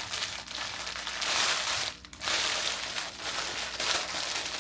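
Plastic packaging crinkling and rustling as it is handled, with a short pause about two seconds in.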